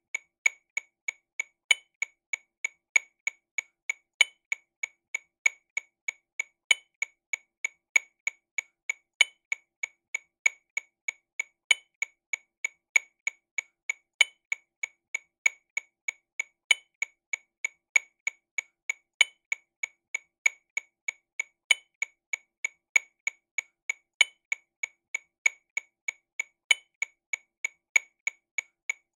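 TAMA Rhythm Watch RW200 metronome click sound at 48 BPM in sixteenth notes, about three short, sharp clicks a second. A louder accented click falls on each beat, about every 1.25 seconds, with three softer clicks between.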